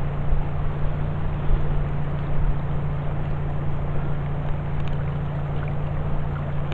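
A steady low motor hum with an even rushing noise over it, holding constant throughout.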